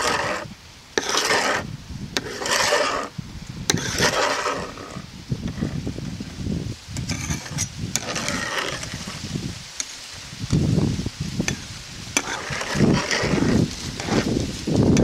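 Wide metal scraper blade drawn over solar panel glass, spreading thick polyurethane in repeated scraping strokes, about one a second at first, then slower and more irregular.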